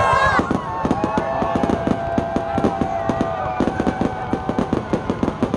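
Fireworks going off in a dense run of rapid crackling and popping, with a steady high tone held over the first half.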